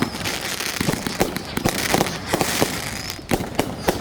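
Fireworks going off: a rapid, irregular string of sharp bangs and pops over continuous crackling.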